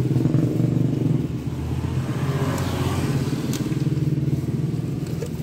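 An engine idling steadily throughout, with small clicks and clatter as plastic body panels and packing paper are handled.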